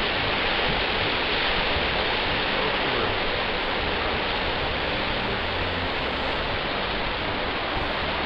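Ocean surf breaking over a rocky shore: a steady, even rush of waves.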